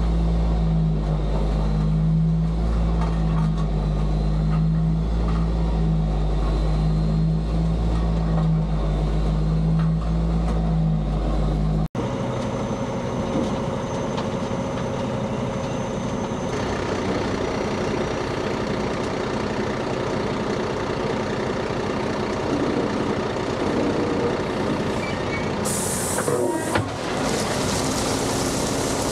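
Engine of heavy driveway equipment running steadily with a deep hum. About twelve seconds in the sound cuts abruptly to a different, more even machine noise, and near the end a short rushing hiss sets in.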